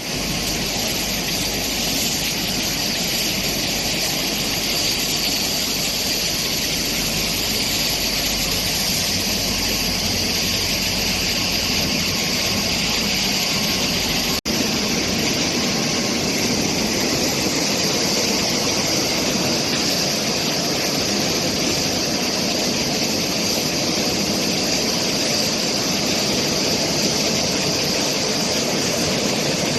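Automatic crate washing machine running: a steady rush of water jets spraying, mixed with machine noise. The sound drops out for an instant about halfway through.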